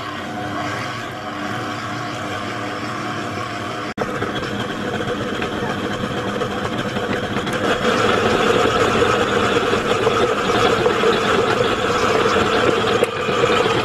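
Electric stand mixer running with its dough hook, mixing and kneading a sticky brioche dough of flour, eggs and liquid in a stainless steel bowl. The motor runs steadily, briefly cuts out about four seconds in, and gets louder from about halfway through.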